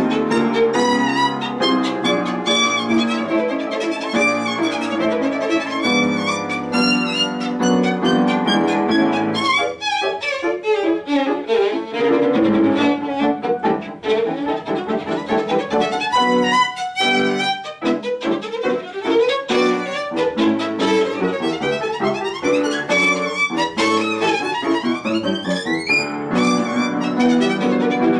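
Violin playing a fast-moving concerto passage, with piano accompaniment.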